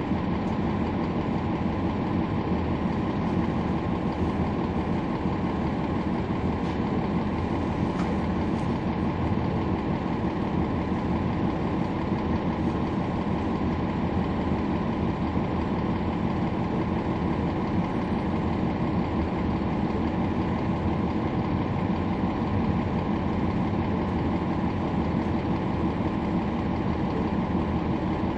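Cummins ISL9 straight-six diesel engine of a 2011 NABI 40-foot transit bus running steadily, heard from inside the bus.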